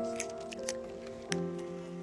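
Soft background music of sustained chords, with the chord changing about a second and a half in. A few light clicks sound over it.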